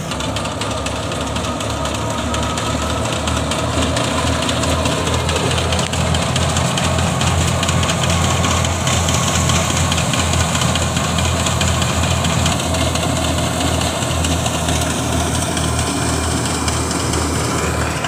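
Tractor-powered wheat thresher running steadily: the tractor engine's low, even hum under the noisy rush of the threshing machine as wheat sheaves are fed in.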